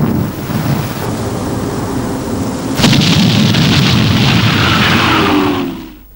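Battleship's 14-inch main guns firing: a heavy boom about three seconds in, followed by a long rumbling roll with falling tones sweeping down through it, fading out near the end.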